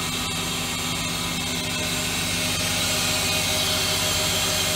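Mazak Quick Turn Nexus 250-II MSY CNC lathe with its spindle running at speed during a spindle run test: a steady machine hum made of several held tones, with a hiss above them, growing a little louder about halfway through.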